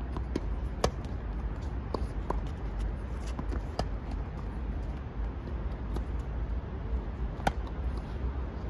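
Tennis balls struck by racquets and bouncing on a hard court during a rally: sharp pops at irregular intervals a second or more apart, the loudest about a second in and another near the end, over a steady low rumble.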